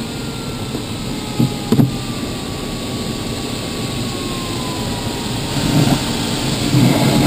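Steady rush of air inside a glider's cockpit in flight, with a faint electronic variometer tone sliding slowly down in pitch, the sign that the glider is sinking. A couple of soft knocks come about a second and a half in.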